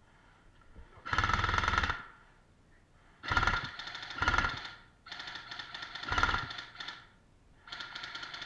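Airsoft rifle firing on full auto in five short bursts, each a rapid rattle of shots lasting up to about a second.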